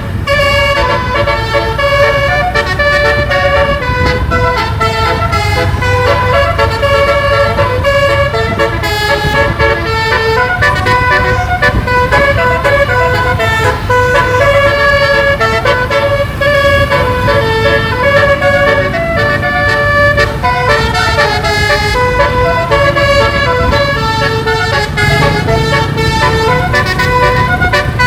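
A bus's 12-note basuri melodic horn, with roof-mounted trumpets, playing a running tune. Its held notes change every half second or so over a steady low rumble.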